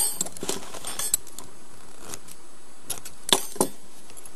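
Light metallic clicks and clinks of small crochet tools being handled while the yarn is cut and fastened off: a cluster in the first second or so, then two sharper clicks a little past three seconds.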